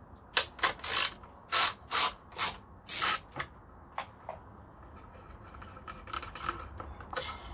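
Large ratchet with a hex bit loosening the Allen bolts inside an oil pan. It clicks in a series of short strokes during the first three seconds or so, then in quicker, lighter clicks near the end.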